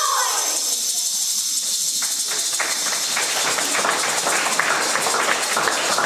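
Audience applause starting about two seconds in and building to steady clapping, over a constant high hiss.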